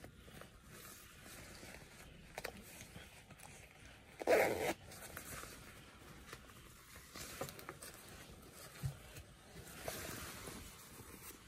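Zip of an Alpinestars motorcycle jacket's inner waterproof pocket being worked, with faint rustling and handling of the jacket fabric and one short, louder rasp about four seconds in.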